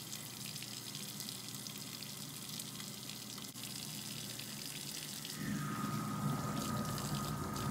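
Kitchen tap running in a steady stream into a farmhouse sink while a soap dispenser bottle is rinsed under it. About two-thirds of the way through, a low hum with a steady high tone joins in.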